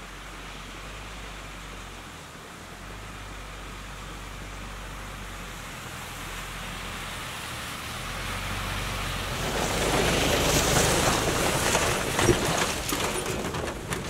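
A vehicle driving on a snowy off-road track: low engine rumble and tyre noise grow louder to a peak about ten seconds in, with scattered crackles toward the end.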